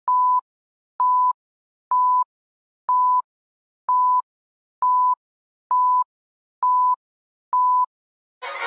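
Countdown beeps: nine short, steady beeps at one pitch, one a second, each starting with a click, ticking off the on-screen count from nine to one. Violin music starts right at the end.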